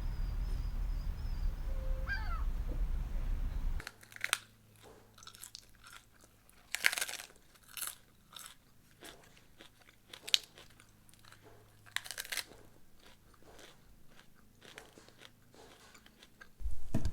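A low steady rumble that cuts off suddenly about four seconds in, followed by irregular crisp crunches and clicks, like chewing or biting into something crunchy.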